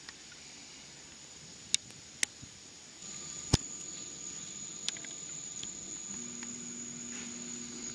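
Sharp isolated clicks from the camcorder's zoom mechanism, a handful spread across the first five seconds, over a steady high-pitched whine. About six seconds in a low steady hum starts.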